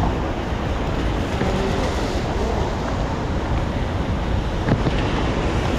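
Steady rushing noise of a city street in heavy rain: falling rain and traffic on wet pavement, with no single sound standing out.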